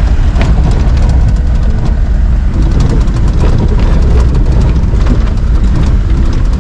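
Four-wheel-drive jeep on a rough, muddy forest track, heard from inside the cabin: a constant low engine and road rumble with the body rattling and knocking over the bumps.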